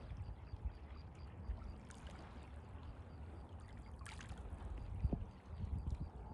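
Lake water lapping and trickling, with wind rumbling unevenly on the microphone and a brief louder splash about four seconds in.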